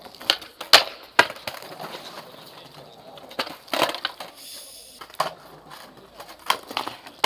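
Skateboards doing flatground tricks on stone paving: about eight sharp clacks of boards popping and landing, some in pairs under half a second apart, with wheels rolling over the slabs in between.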